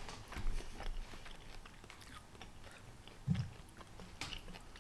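Close-up mouth sounds of eating spicy elote corn on the cob: a few crisp bites about half a second in, then quieter chewing with small wet clicks, and a brief low hum a little past the middle.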